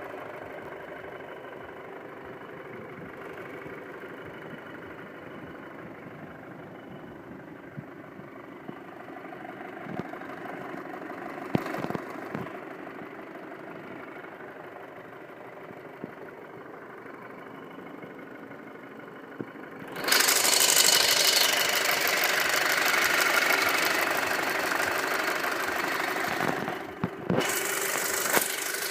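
A 2.0T FSI four-cylinder turbocharged petrol engine running at idle with a fast, steady ticking noise. About twenty seconds in the sound suddenly becomes much louder and brighter, and a few sharp clicks come near the end.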